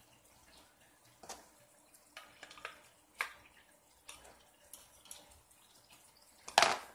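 Scattered light clicks and taps of small plastic and metal parts and hand tools being handled while an RC buggy is taken apart for repair, with one louder clack near the end.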